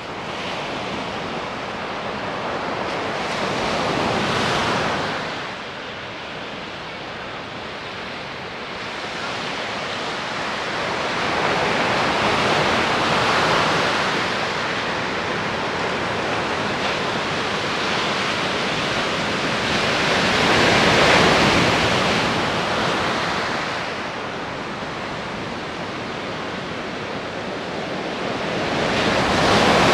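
Sea waves breaking and washing up a beach. The noise swells and eases with each wave, about every eight seconds, four times in all.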